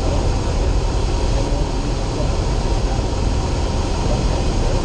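Single-engine light airplane's piston engine and propeller running steadily, heard as a constant loud drone inside the cockpit.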